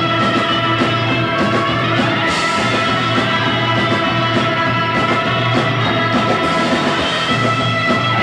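A surf and garage rock band playing live: an instrumental with electric guitar, bass, drums with steady cymbal strokes, and a held organ chord.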